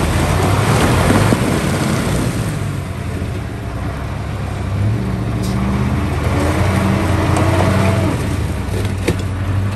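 Vehicle engine running under load and revving, its pitch rising and falling, with a loud rushing noise over it in the first two seconds or so.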